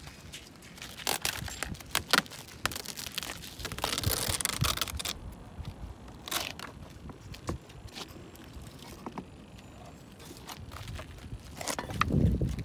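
Hands working on a model aircraft with its engine stopped: scattered clicks and knocks with crinkling of the plastic film covering, a stretch of rustling about four seconds in, and a heavier thump near the end.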